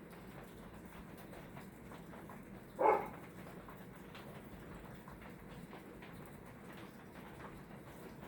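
Hunter Original ceiling fan with its oil-bath motor running steadily with a low hum. A dog barks once, short and loud, about three seconds in.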